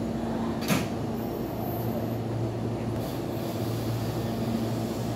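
Hankyu 9300 series electric train standing at the platform, ready to depart, its onboard equipment giving a steady low hum. One sharp knock sounds about a second in.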